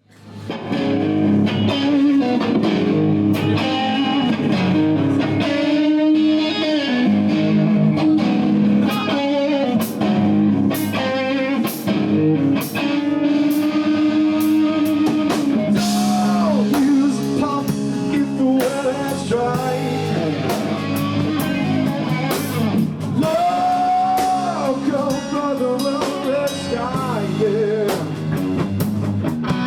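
Live blues-rock band playing: electric guitar over a drum kit with cymbals, with a voice singing.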